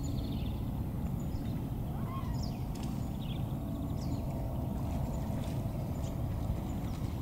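Lakeside evening ambience: a steady low rumble with faint, scattered high bird chirps every second or so.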